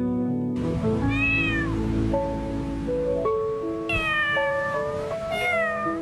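A cat meowing three times over background music. The first meow rises and falls, and the later two fall in pitch.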